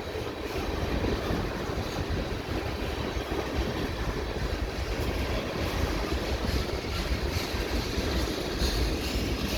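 Freight cars of a CN mixed freight train rolling past at low speed, about 10 km/h: a steady low rumble of steel wheels on the rails.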